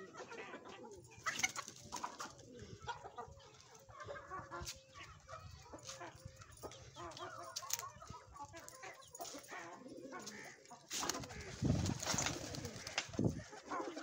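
Domestic pigeons cooing and chickens clucking together in a mix of short calls, with a few louder, noisier bursts, the biggest between about eleven and thirteen seconds in.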